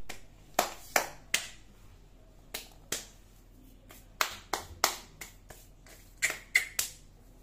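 About fifteen sharp clicks in an irregular rhythm, more spread out in the first three seconds and bunched closer together from about four seconds in.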